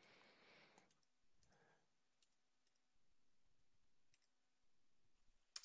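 Near silence, broken by a few faint, scattered computer keyboard clicks.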